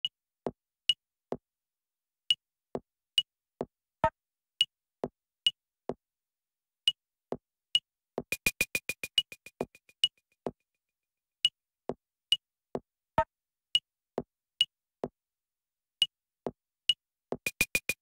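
Sparse electronic percussion: short high ticks alternating with lower knocks in an uneven rhythm, with silence between hits. About eight seconds in a quick roll of repeated clicks fades away, and another roll starts just before the end.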